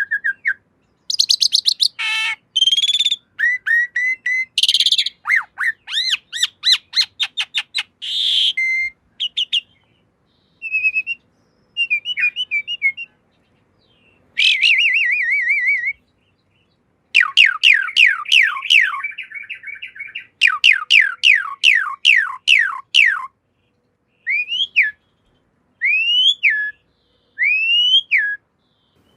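Asian pied starling (jalak suren) singing a varied song of whistles, chatter and fast runs of falling notes, with short pauses between phrases. Near the end come a few separate curved whistles.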